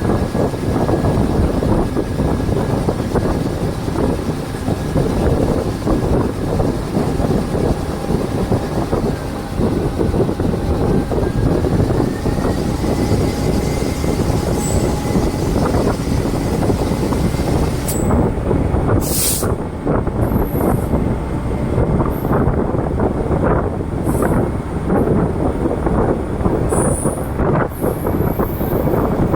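DEMU express train running, heard from on board: a steady rumble with the wheels clattering over the rails. There is a brief hiss about two-thirds of the way through.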